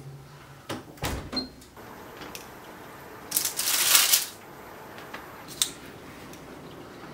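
Kitchen handling sounds: a couple of knocks from the metal oven rack and door in the first second or so, then about a second of rustling as baked bagels are moved off a parchment-lined baking tray, and one sharp click a little later.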